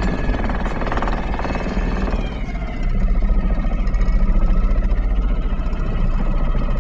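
Sailboat's inboard engine running steadily as the boat motors along, getting somewhat louder about two and a half seconds in.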